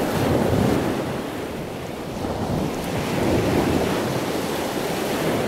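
Ocean surf: a steady wash of waves that swells twice, once just after the start and again about three and a half seconds in.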